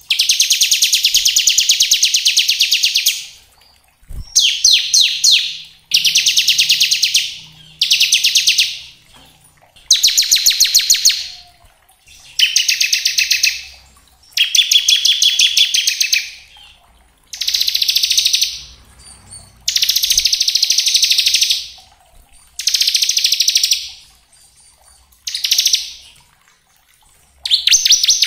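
Bar-winged prinia (ciblek) singing its "ngebren" song: about a dozen loud bursts of one to three seconds, each a fast, dense trill of high notes, with short pauses between.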